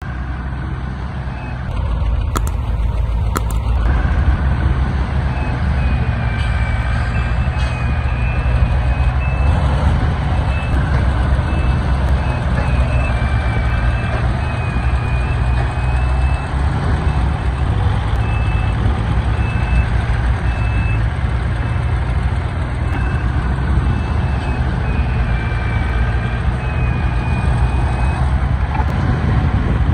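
Heavy diesel construction machinery running steadily, with a high-pitched reversing alarm beeping over and over from about six seconds in until near the end.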